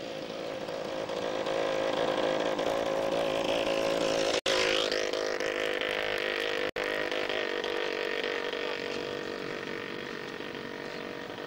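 An engine running steadily, growing louder until about four seconds in and then slowly fading, as a motor vehicle does when it passes. The sound cuts out for an instant twice, near the middle.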